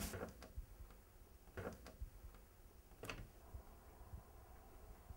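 Near silence: quiet room tone with a low hum and three faint, short taps, two close together about a second and a half in and one more about three seconds in.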